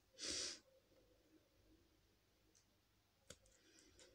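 Near silence with a few faint clicks of a small plastic makeup tube being handled close to the microphone, after a short hiss at the start.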